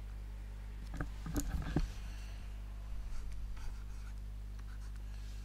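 Pen scratching and tapping on a writing surface in short strokes as a letter is written, mostly about a second in, with a few more strokes a little later. A steady low electrical hum runs underneath.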